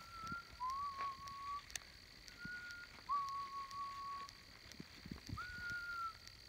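A person whistling five long, level notes, alternating between a higher and a lower pitch with short gaps between them, over a faint steady high-pitched hum.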